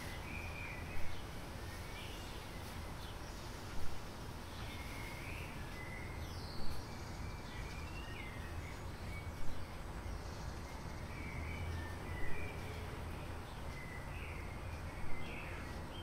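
Outdoor background with scattered short bird chirps and a steady low hum. A brief louder sound comes back regularly, about every three seconds.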